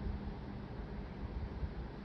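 Station background noise: a steady, uneven low rumble with hiss and a faint steady hum.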